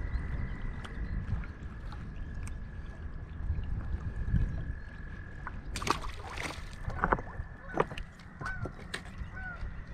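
Lakeshore sound of water and wind with a steady high trill running through it; just past halfway a short rush of noise, then a few sharp clicks, and near the end a string of short animal calls repeating about twice a second.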